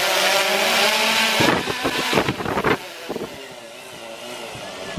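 DJI Phantom Vision 2+ quadcopter's propellers whirring close overhead, a loud steady hiss with a buzzing hum; about a second and a half in, a clatter of knocks as it is caught by hand, after which the whir is much quieter.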